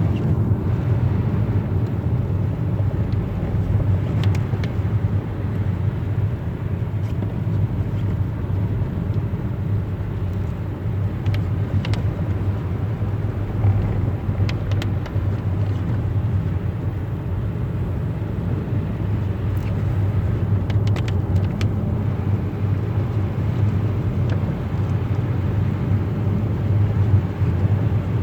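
Kia Soul driving on a snowy road: a steady low rumble of road and engine noise, with a few faint clicks here and there.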